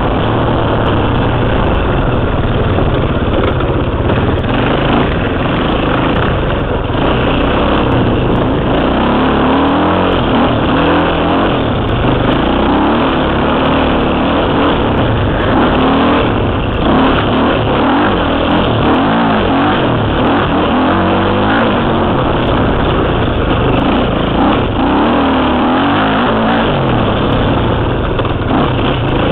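KTM 300 two-stroke single-cylinder dirt bike engine, heard close from a helmet camera as it is ridden, its revs rising and falling over and over as the throttle is worked.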